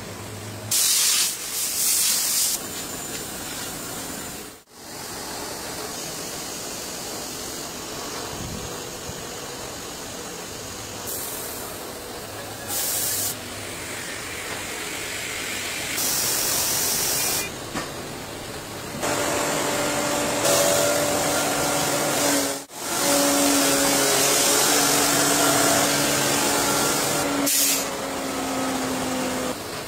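Tyre-retreading workshop machinery running with a steady noise, broken by several short bursts of loud hissing. About two-thirds of the way through, the spindle machine holding the tyre casing adds a steady hum.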